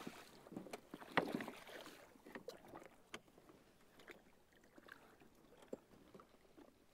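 Water splashing as a hooked musky thrashes at the surface beside a small boat. The biggest splash comes a little over a second in, followed by smaller splashes and knocks.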